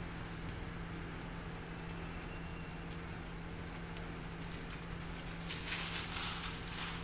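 Outdoor ambience with a steady low hum; from about four and a half seconds in, a dry crackling rustle sets in, loudest around six seconds.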